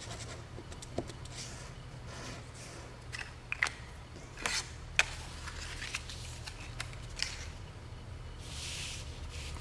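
Cardstock being handled while a box is glued together: a scattered series of light clicks and taps as a pen-style glue applicator is used and set down, then a brief soft rub near the end as the glued tab and paper are pressed and slid together.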